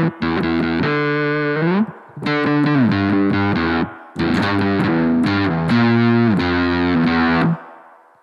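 Electric guitar played through a BOSS GT-1000 amp modeller and a Two Notes Cab M cabinet simulator: strummed chords with a few pitch slides, stopped sharply near the end and left to fade out.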